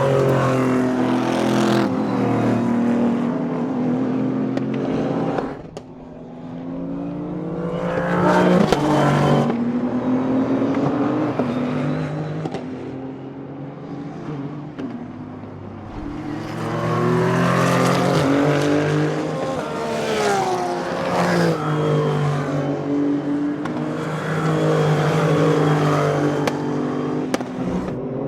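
Race cars passing at speed one after another, their engines running hard with the pitch climbing and dropping. The sound swells and fades with each pass, the loudest passes coming about eight seconds in and again in the second half.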